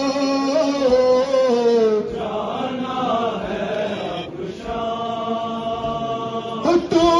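Men chanting a noha, a Shia mourning lament, in long held melodic lines. A fuller massed chorus comes in a couple of seconds in, with a brief drop just past the middle before the held notes resume.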